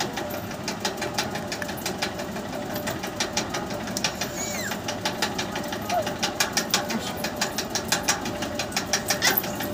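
A rapid, even run of clicks, several a second, growing denser in the second half.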